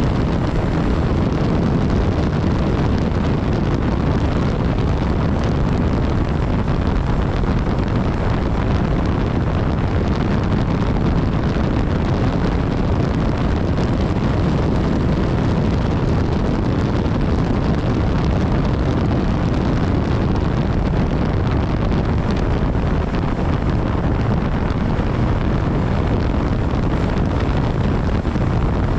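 Steady wind rush on the microphone of a BMW S1000XR motorcycle riding at speed, with the bike's engine and road noise blended into it.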